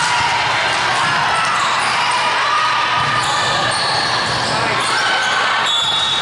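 Steady din of a busy volleyball gym: many voices calling and talking over one another, with volleyballs being hit and bouncing on the courts.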